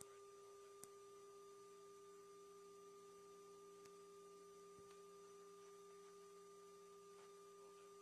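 Near silence: only a faint, steady electrical hum tone on the line, with two small clicks in the first second.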